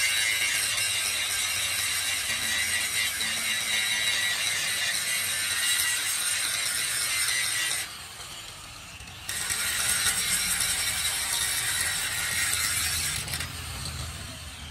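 Electric angle grinder with a grinding disc grinding down a weld bead on a steel truck chassis rail, dressing the welded-over crack repair. It is a steady, hissing grind that breaks off for about a second and a half midway while the disc is lifted off the metal, then resumes and fades near the end.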